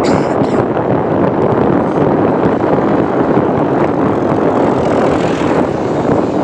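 Passenger train running: a steady, loud rumble of the coach and wheels on the track, heard from inside the carriage.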